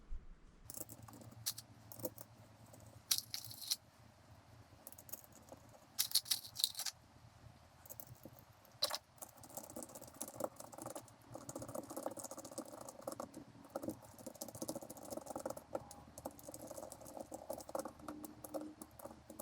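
Small metal parts of a car carburettor clicking and rattling as it is put back together by hand. There are a few sharp clicks about three, six and nine seconds in, then a quick run of small clicks and scrapes from about ten seconds on.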